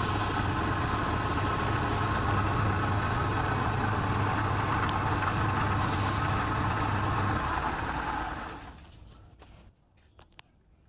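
Electric wood lathe running with a steady hum, then switched off about seven seconds in and winding down over roughly a second. A few faint clicks follow.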